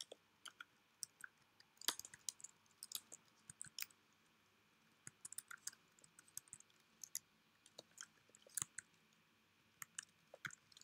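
Faint, irregular clicks of computer keys as numbers are typed into entry boxes, coming in small clusters with short gaps between them.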